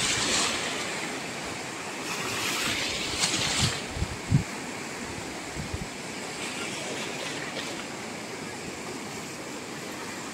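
Shallow surf washing around rocks, a steady wash with a louder rush of breaking water about three seconds in. A few brief low bumps of wind on the microphone follow.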